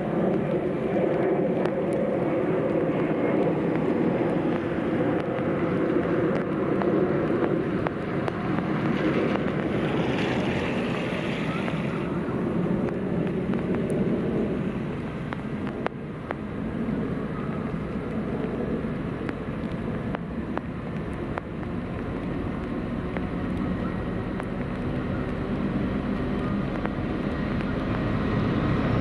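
Aurizon diesel-electric freight locomotives approaching with a train, their engines running with a steady low drone that eases a little about halfway through.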